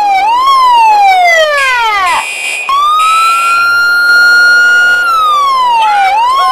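Electronic siren wailing in long cycles. Its pitch holds high, slides slowly down and swings back up, with a short break about two seconds in.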